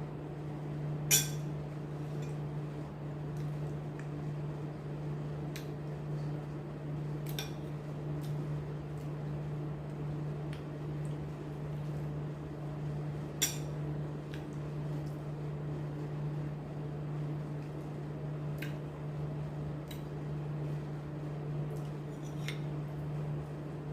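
Cutlery clinking against a plate now and then while eating, with the sharpest clinks about a second in and near the middle, over a steady low hum.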